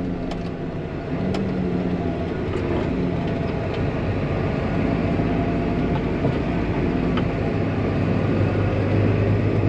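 Tractor engine running steadily under way, a low drone that grows stronger near the end, with a few faint clicks.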